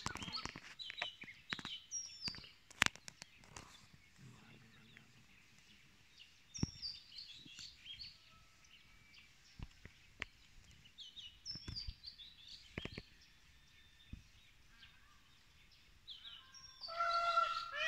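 Wild birds chirping in clusters of short, high, falling notes, with scattered sharp clicks and taps between them. About a second before the end a louder call with a clear pitch starts, rising and falling in a quick repeated series.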